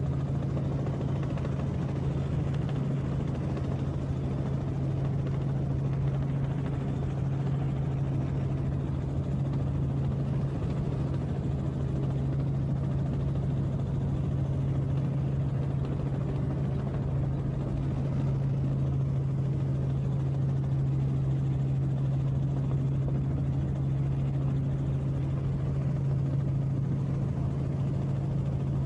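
Aircraft in flight heard from inside the cabin: a steady, unchanging engine drone with a strong low hum.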